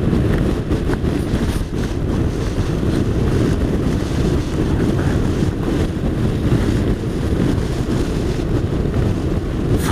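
Wind buffeting the microphone of a camera on a moving motorcycle, a steady low rumble with the bike's road noise underneath.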